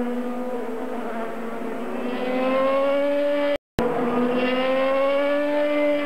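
IndyCar race cars' 2.2-litre twin-turbo V6 engines running on track out of view, each pitch climbing steadily as the cars accelerate. The sound cuts out for a split second a little past midway, then the pitch climbs again.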